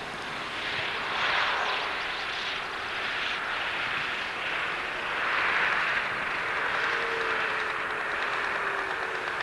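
Pipistrel Velis Electro's 77-horsepower electric motor and propeller running as the plane taxis. An airy propeller noise swells and fades, with a faint motor whine that falls in pitch near the end.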